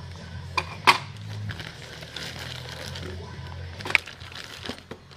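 Plastic packaging and a cardboard box rustling and crinkling as tools are unpacked, with sharp knocks of items set down on a plywood board, twice about a second in and once near four seconds.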